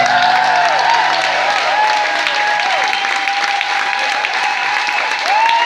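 Audience applauding at the end of a song, with cheering and whoops rising and falling over the clapping. Low guitar notes ring out and fade in the first couple of seconds.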